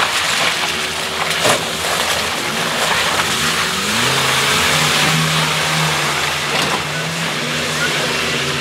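Suzuki Samurai engine revving hard under load as the 4x4 ploughs through deep mud; the revs climb and hold high about halfway through. A brief sharp knock comes about one and a half seconds in.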